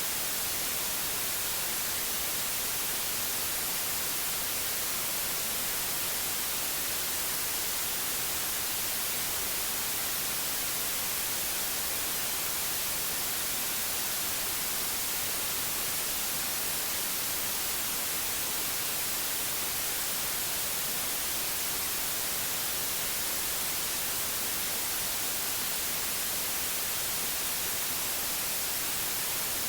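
Steady white noise: an even hiss, brightest in the high end, with no change or break.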